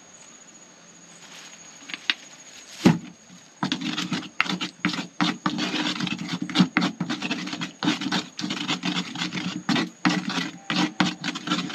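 A pestle scraping and grinding round a mortar, mixing a chilli-garlic basting paste after oil has been added: one knock about three seconds in, then quick repeated scraping strokes from about three and a half seconds on.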